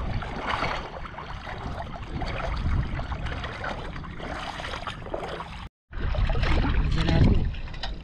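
Shallow river water sloshing and splashing irregularly as hands work in it, picking up snails and shells at the river's edge. The sound breaks off completely for a moment about six seconds in, then comes back louder.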